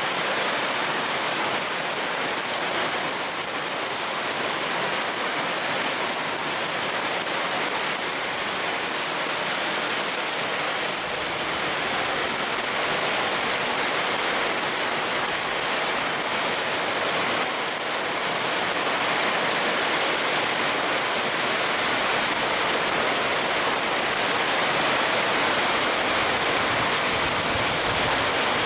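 Steady downpour of rain falling on leaves, plants and puddled ground, an even rushing hiss that grows slightly louder about two-thirds of the way through.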